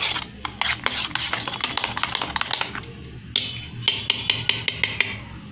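Metal spoon stirring curd in a stainless-steel bowl: quick clicks and scrapes of the spoon against the bowl's side, coming thick and fast at first and thinning out to a few separate taps about three seconds in.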